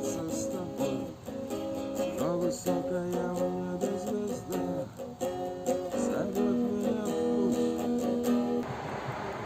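Acoustic guitar strummed in a steady rhythm with a voice singing a melody. The music cuts off suddenly about a second before the end, leaving a steady rushing noise.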